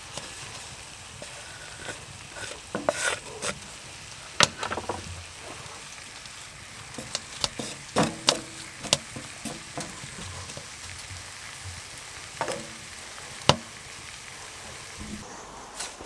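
Sausages and onions frying in a pan, a steady sizzle, with irregular clicks and scrapes of a utensil stirring and turning the food.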